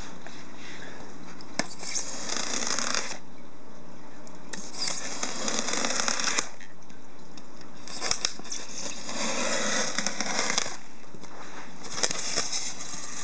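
Razor knife slicing through pink extruded-polystyrene insulating foam board: four rasping, scratchy cutting strokes, each a second or two long, with short pauses between.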